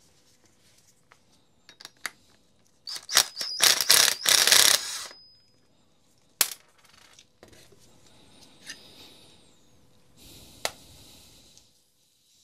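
Makita cordless impact driver with a 13 mm socket hammering for about two seconds, undoing the nut on a chainsaw motor's rotor shaft. Sharp clicks and handling knocks follow.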